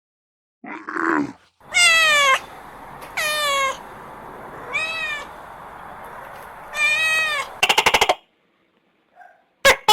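A cat meowing four times, each meow falling or arching in pitch. A short low grunt comes just before the first meow, and a quick rattle of clicks follows the last.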